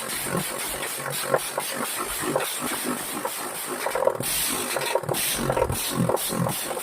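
Kawasaki Binter Merzy motorcycle engine running, a steady stream of uneven firing pulses.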